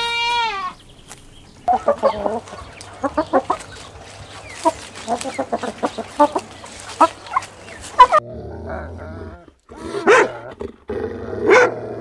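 A goat bleats once at the start, falling in pitch at the end. A flock of chickens then clucks for about six seconds. After that, dogs bark twice near the end.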